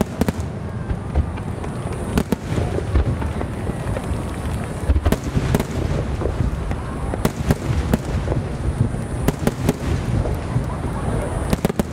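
Starmine fireworks barrage: aerial shells bursting in quick succession. Sharp bangs come at irregular intervals over continuous, dense low booming.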